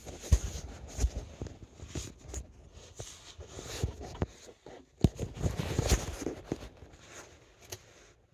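Handling noise from a phone camera being moved and rubbed against clothing, with irregular rustling and several sharp knocks. Light plastic taps come from a wiring-harness connector being fumbled into line.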